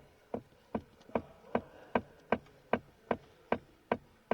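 A steady run of sharp mechanical ticks, evenly spaced at about two and a half a second.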